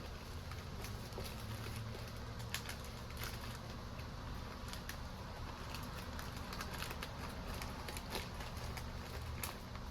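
Irregular light clicks and taps of small objects being handled on a workbench, over a steady low hum.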